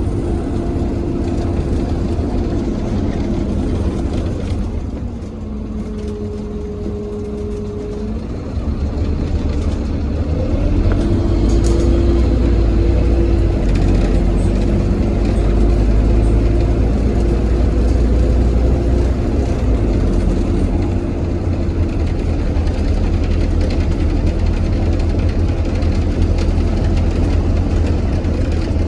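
Bus engine heard from inside the saloon, running steadily with a low drone; it grows clearly louder about ten seconds in and stays up as the bus gets under way. A steady tone sounds for about two seconds around six seconds in.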